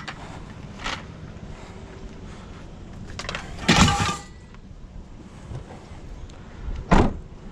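Clicks and knocks as scavenged items are handled, a loud clatter with a brief metallic ring about four seconds in, and a sharp heavy slam near the end as the Jeep's door is shut.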